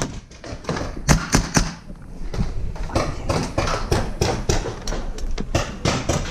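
Paintball gunfire: sharp pops at uneven spacing, about two or three a second, loudest about a second in.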